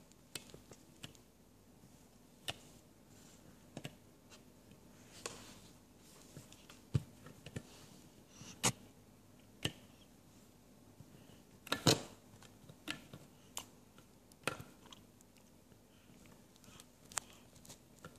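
Wall light switches clicking as a child flips them, in irregular single clicks with gaps of up to a couple of seconds. The loudest is a quick pair about twelve seconds in.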